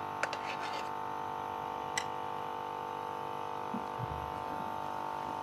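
A spatula stirs ghee-soaked semolina in a nonstick wok, giving faint ticks, one sharp tick about two seconds in and a soft low knock near four seconds, over a steady electrical hum.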